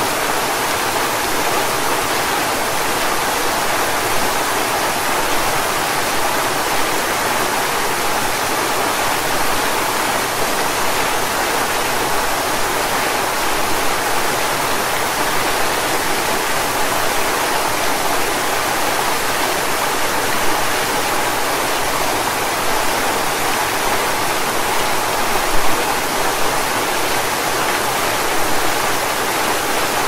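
Running water of a stream rushing over rocks: a steady, even hiss with little low rumble. There is one brief louder splash about three-quarters of the way through.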